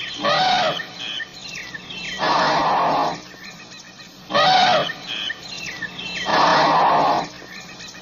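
African elephant calls in a repeating sequence: a short call that bends in pitch, a few faint high squeaks, then a harsher, noisier call about a second long. The same sequence comes round again about four seconds later.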